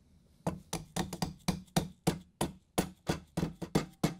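Rubber mallet tapping a metal trim ring down onto a KitchenAid stand mixer's head: a quick series of light knocks, about four a second, starting about half a second in.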